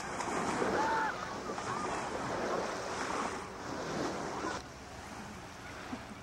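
Wind rushing on a camcorder microphone over open-air beach ambience, with faint distant voices. The sound drops suddenly about four and a half seconds in, at a cut in the tape.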